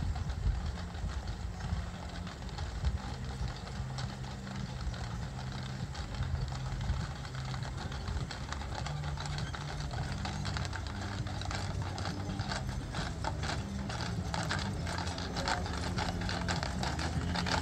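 Hooves of a team of Clydesdale draft horses walking in harness on asphalt, a steady clip-clop of many hooves. It grows louder and denser from about twelve seconds in as the team draws alongside, over a low steady hum.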